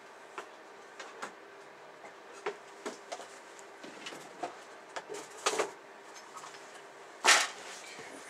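Crinkling and rustling of a thin clear plastic bag around model kit sprues as it is handled to be cut open, with scattered light clicks and one louder crackle near the end.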